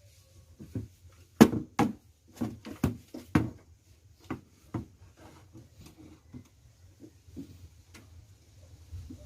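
A series of irregular sharp knocks and taps of hard objects being handled, the loudest in the first three and a half seconds and sparser after, over a faint steady low hum.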